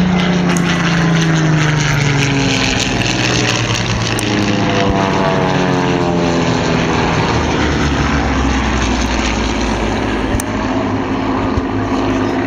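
Piston-engined propeller aircraft running loud. The engine note drops in pitch over the first few seconds as a plane passes, then other engine notes rise and fall before settling to a steady drone.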